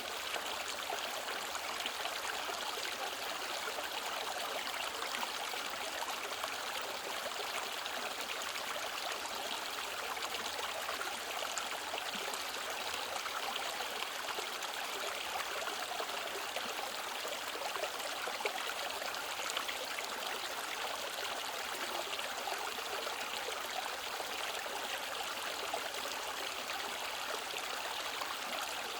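Mountain valley stream flowing steadily, an even rushing and babbling of water.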